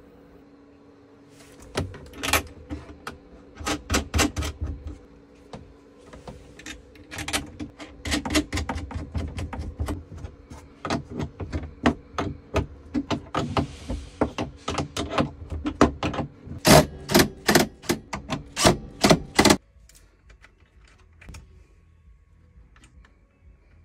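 Hand tools clicking and tapping on battery terminals and cable connectors in quick, irregular runs, louder and sharper near the end, then stopping abruptly.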